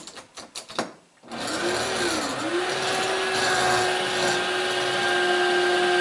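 A few sharp clicks, then a power drill starts about a second in and runs steadily, boring into a Defiant deadbolt lock from the outside of the door. Its motor pitch sags briefly and recovers soon after starting, then holds steady.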